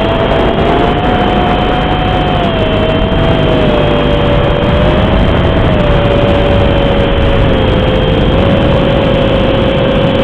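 Racing quadcopter's Cobra 2204 2300kv motors and Dalprop 5040 tri-blade props whining in flight over a steady hiss, the whine's pitch slowly falling.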